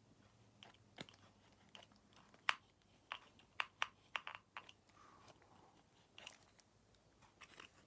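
Faint, irregular small plastic clicks and ticks from a clear plastic side-action correction tape roller being handled and fiddled with in the fingers, the sharpest click about two and a half seconds in.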